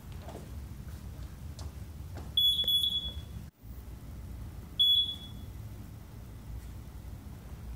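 Digital gym interval timer beeping: one long beep of just under a second about two and a half seconds in, then a shorter beep about two seconds later, signalling a change of interval.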